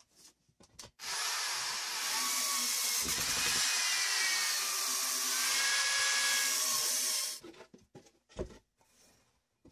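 Corded electric drill running into a wooden board for about six seconds with a steady whine, then stopping. A few knocks and a dull thud follow as the board is handled.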